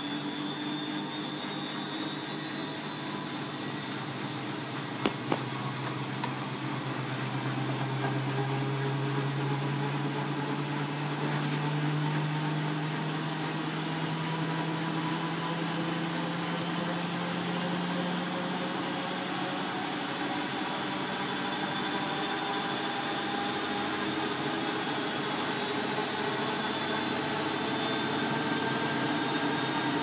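Bosch WFF2000 washing machine spinning up on its final spin, the drum motor's whine rising steadily in pitch as it climbs toward 1000 rpm. Two sharp clicks about five seconds in.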